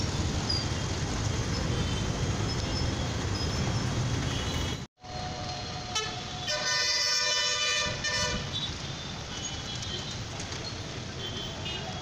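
Heavy city traffic with engines running and vehicle horns tooting; one loud horn sounds for about a second and a half just after the middle. The sound cuts out completely for a split second a little before the halfway mark.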